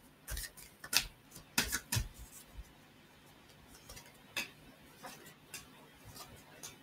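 A deck of tarot cards being shuffled by hand: irregular soft clicks and flicks of the cards, most frequent in the first two seconds, then sparser.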